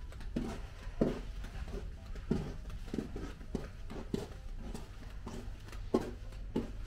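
Footsteps of people walking along a carpeted corridor, soft evenly spaced steps at about three every two seconds, over a steady low hum.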